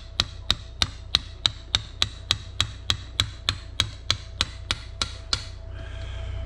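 Hammer tapping on a metal part of a Toyota Land Cruiser 200 steering column, about eighteen quick, even strikes, three a second, stopping about five seconds in. A steady low hum runs underneath.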